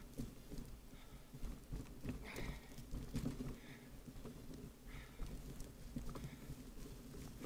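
Bicycle riding over a rough, muddy dirt track: a low, uneven rumble from the tyres and frame, with frequent small rattles and knocks over the bumps.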